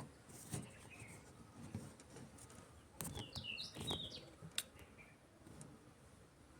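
A small pet bird chirping: a few short, quick high chirps, bunched together about three to four seconds in, with fainter single chirps before and after. Several sharp clicks or taps are heard among them.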